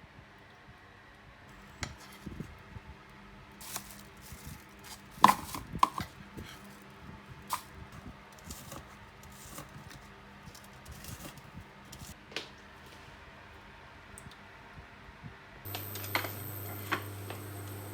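Kitchen work: scattered knocks and clinks of dishes and utensils, the loudest about five seconds in. Near the end a steady hum with a hiss comes on.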